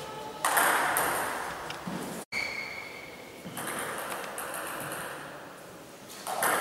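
Celluloid-type table tennis ball ticking off rubber bats and the table during a doubles rally, over the hum of a sports hall, with a burst of noise about half a second in.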